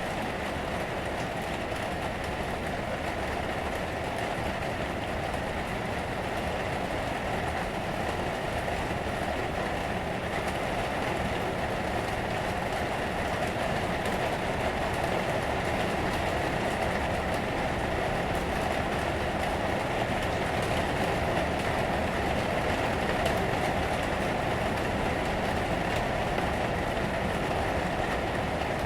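Rain falling on a roof, heard from inside the attic: a steady, even hiss that swells slightly in the middle.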